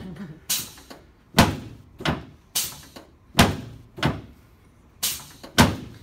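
A chiropractic drop table's pelvic section snaps down under hand thrusts during a sacroiliac adjustment. It gives about eight sharp clacks at uneven intervals, roughly one every half second to a second.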